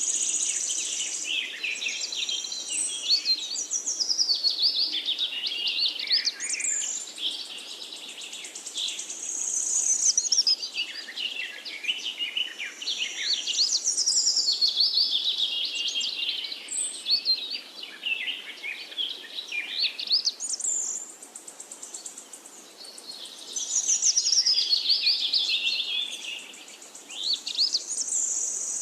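Songbirds singing: long, rapid, high-pitched warbling phrases follow one another with short pauses.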